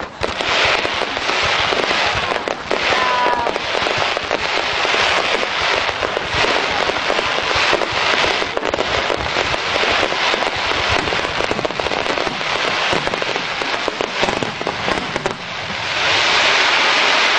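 Fireworks display: a dense barrage of aerial shells bursting with rapid, continuous cracks and pops, and a short whistle about three seconds in. The crackling grows denser and louder near the end as a sky full of crackling stars goes off.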